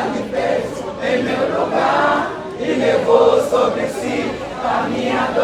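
A crowd of many voices singing together.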